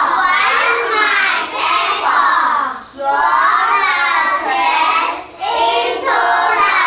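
A group of young children singing a song together in unison, with two short breaks between phrases.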